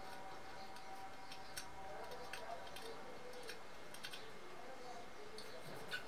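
Faint, irregular light clicks and scrapes of a hand rubbing and handling a finned aluminium heatsink, with a sharper click near the end.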